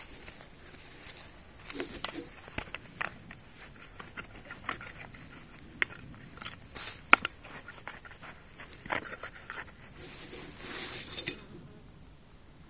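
Gloved hands scraping and patting loose soil, with the rustle of work clothes and scattered sharp clicks and taps; a longer rustling stretch comes about ten seconds in.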